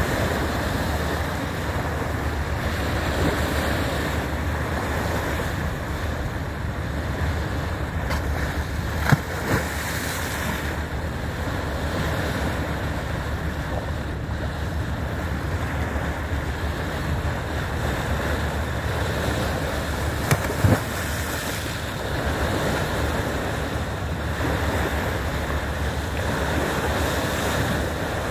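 Steady rush of the bow wave breaking along a moving boat's hull, with wind buffeting the microphone. A couple of brief knocks about nine and twenty seconds in.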